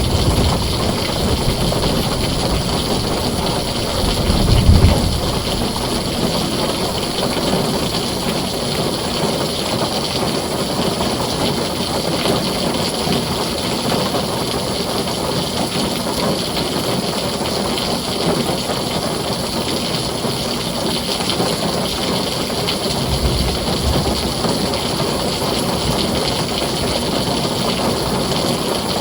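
Heavy rain falling steadily on a tin roof, a dense even hiss. Low rumbles of thunder swell under it at the start, most strongly about four to five seconds in, and once more, fainter, about three-quarters of the way through.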